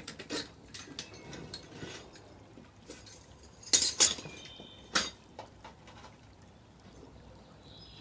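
Steel crucible lifting tongs clinking and clanking as they are handled and set down, with two loud clanks just before the middle, a short metallic ring after them, and another clank about a second later.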